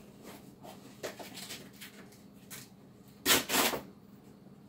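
Someone rummaging through belongings to find a gas mask: scattered light knocks and rustles, with a loud double scrape-and-rustle about three seconds in.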